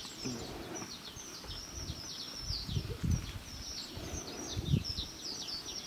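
Many small birds chirping without a break: short, high chirps that sweep downward, overlapping one another. A few low rumbles swell up about two and a half seconds in and again near the end.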